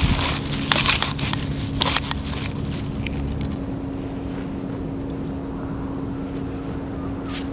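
Shovel blade pushed into grassy turf with the foot, crunching and tearing through roots and soil to dig a plug; the crunching stops about three and a half seconds in.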